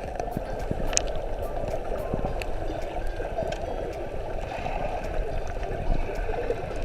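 Muffled rushing water noise with scattered sharp clicks, as picked up by a GoPro in or at the water.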